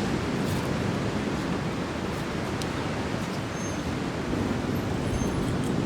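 Wind buffeting the microphone over beach surf: a steady low rumbling hiss, with a few faint ticks.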